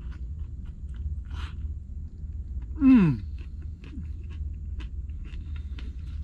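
A man chewing a mouthful of wrap, with small clicks over a steady low rumble. About three seconds in he gives one loud, short hum that falls in pitch.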